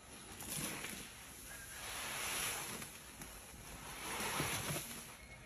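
Gloved hands squeezing and kneading wet, foamy soap in a plastic tub: wet squishing and sloshing that swells three times.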